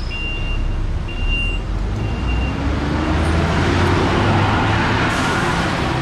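City bus pulling away: a high electronic beep repeating about once a second, then the engine rising in pitch under a loud hiss that swells to a peak about five seconds in.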